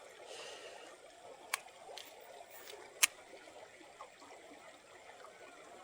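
Shallow creek trickling steadily, with two sharp clicks about a second and a half apart.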